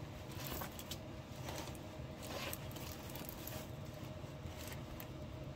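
Faint rustling and crinkling of a rolled diamond-painting canvas being handled, over a low steady hum.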